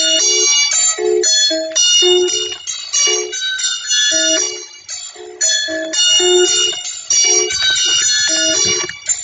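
Music of bright, bell-like pitched notes played in a quick, even rhythm, about two to three notes a second.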